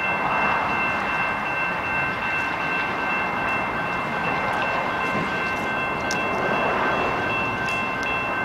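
Locomotive air horn of a Norfolk Southern freight train led by a GE ES44DC, sounded as one long, steady multi-note chord as the train approaches, over the rushing noise of the train.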